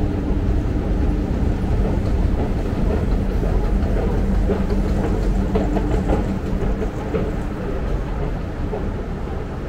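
Escalator running: a steady low mechanical rumble with a faint hum.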